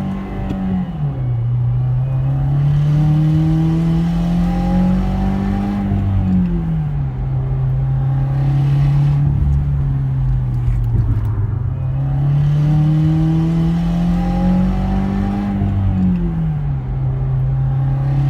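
2017 Subaru WRX turbocharged 2.0-litre flat-four accelerating hard, its note climbing through the revs and dropping three times at upshifts. Under high revs and high boost it makes a rattle and metallic buzz, caused by a boost and exhaust leak where a nut has snapped off the exhaust manifold.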